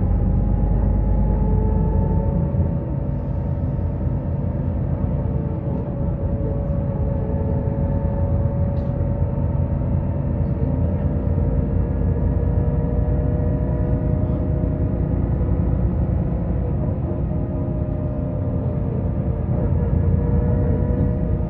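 Inside a Solaris Urbino 12 III city bus under way: a steady low rumble of the drivetrain and tyres on the road, with a faint whine that drifts slightly in pitch.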